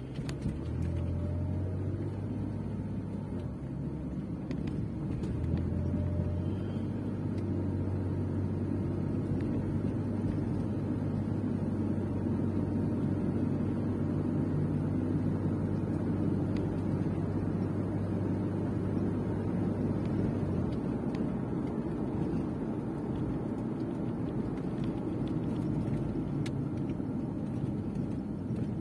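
Car driving at steady speed, heard from inside the cabin: a low engine hum with tyre and road rumble. The low hum drops away about twenty seconds in while the road rumble carries on.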